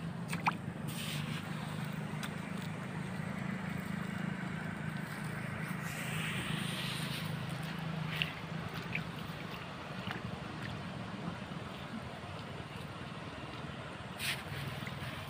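Steady rush of flowing river water, with a few small drips and splashes and a swell of hiss about six seconds in.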